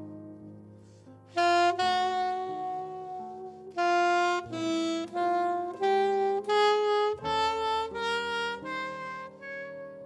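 Alto saxophone playing a slow jazz ballad melody over soft grand piano accompaniment. A new phrase of distinct, held notes comes in after a quiet first second and climbs before easing back down near the end.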